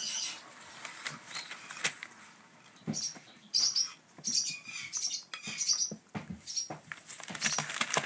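African grey parrot chicks giving short, high, squeaky begging calls in quick irregular bursts, mixed with a few sharp clicks: hungry chicks begging to be fed.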